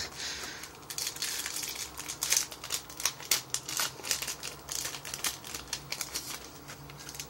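Foil Yu-Gi-Oh! booster-pack wrapper crinkling and crackling as it is pulled open by hand, in a quick, irregular run of sharp crackles.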